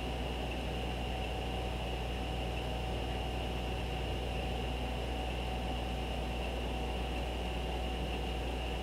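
Steady hum and hiss of a computer fan and electrical noise: a constant low drone with faint steady high whines over it.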